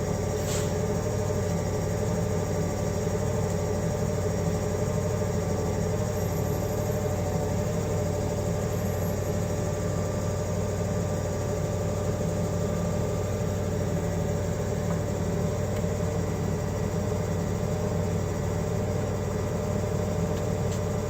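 Forklift engine idling steadily, with one brief click about half a second in.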